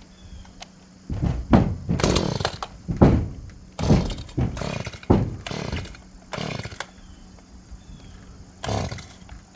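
Chainsaw sounding in a string of about ten short bursts, each surging and then falling away, with quieter gaps between them.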